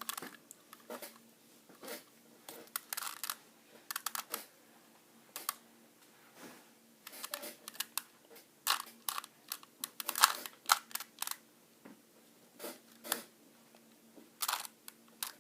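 Rubik's Cube faces being turned by hand: quick, irregular plastic clicks and clacks in short clusters of several turns, with brief pauses between. A faint steady hum lies underneath.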